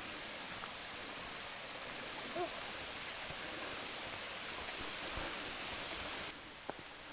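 Steady rush of flowing creek water, with one short pitched call about two seconds in. The rush cuts off suddenly near the end.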